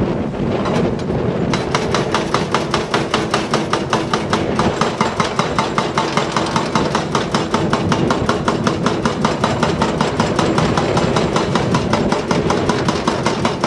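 Hydraulic rock breaker on a Volvo EC380DL excavator hammering rock, a fast even train of blows, about eight a second, starting about a second and a half in. Under it the excavator's diesel engine runs with a steady hum.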